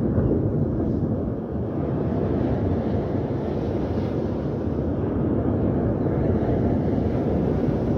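Steady wind rumbling on the microphone, with waves breaking on a shingle beach.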